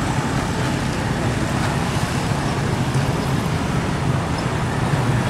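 Steady road traffic noise: motor vehicle engines running and passing by a level crossing.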